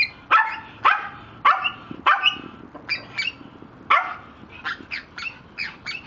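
A small dog barking in a rapid series of sharp barks, about two a second, fainter in the last two seconds.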